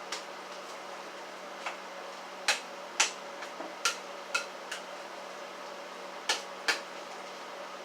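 Irregular sharp clinks and knocks of kitchenware being handled, about nine of them, over a steady low hum.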